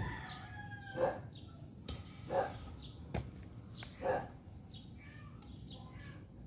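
A dog barking three times, about a second and a half apart, with two sharp clicks of a hand trowel striking stones in the soil in between.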